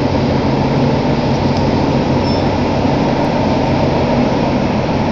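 Toei Oedo Line linear-motor subway train running through a tunnel, heard from inside the car: a loud, steady rumble of wheels and tunnel noise with a low hum underneath.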